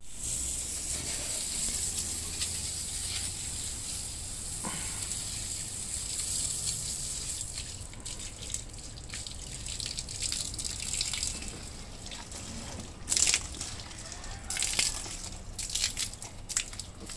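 Water running from a garden hose and splashing onto potted plants and wet ground: a steady hiss for the first half, then uneven splashes and spurts, with a couple of louder ones near the end.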